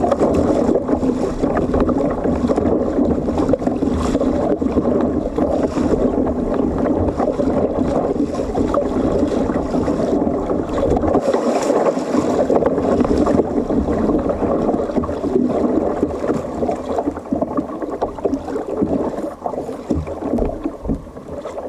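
Sea water rushing and lapping steadily against a fishing kayak's hull, with some wind on the microphone.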